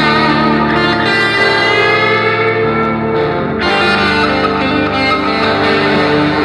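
Background guitar music, with a new chord coming in about three and a half seconds in.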